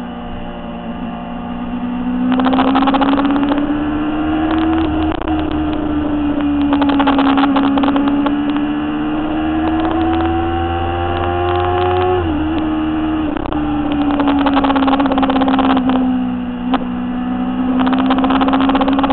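Motorcycle engine running on board at cruising speed, its pitch slowly rising and falling with the throttle and dropping sharply about twelve seconds in. Gusts of wind buffet the microphone several times.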